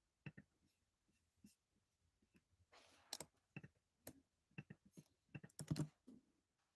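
Faint, irregular clicks and taps of a computer keyboard and mouse, with a short rustle about three seconds in and a quick run of clicks near the end.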